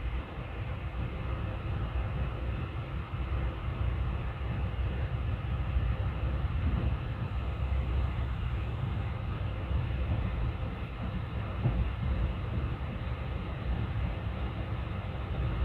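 Indian Railways express train running at speed: a steady, heavy low rumble of coach wheels on the rails, with a few brief louder knocks from the track.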